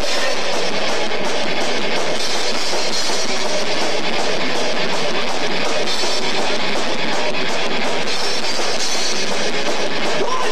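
Rock band playing live: electric guitars, bass guitar and a drum kit, loud and steady without a break.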